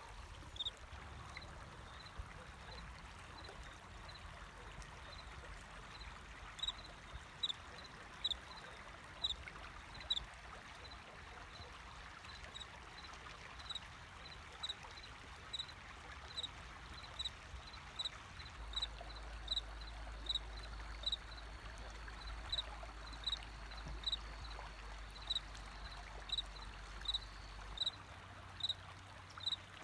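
Water flowing and trickling steadily, with a cricket giving short, high chirps at a steady pace, roughly one to two a second.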